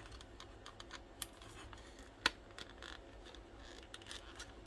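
Faint small clicks and scrapes of a little flat screwdriver prying at a plastic lever to push out its small retaining pin, with a sharper click about a second in and the loudest a little past two seconds in.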